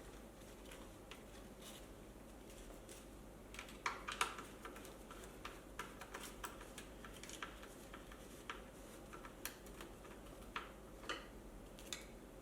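Irregular light clicks and taps from tools and bolts being handled while the wheel is bolted back into an electric unicycle, with a short louder cluster about four seconds in.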